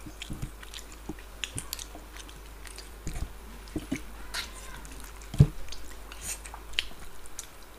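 Close-miked chewing and biting of people eating by hand, a large curried fish head and rice, with many small wet mouth clicks. One louder thump comes about two-thirds of the way through.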